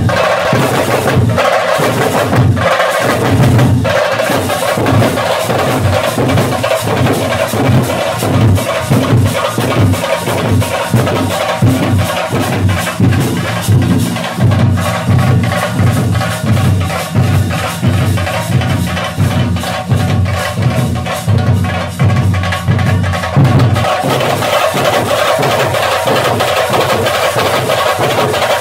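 A troupe of large barrel drums beaten with sticks, playing a fast, dense rhythm together. The drumming changes pattern about three-quarters of the way through.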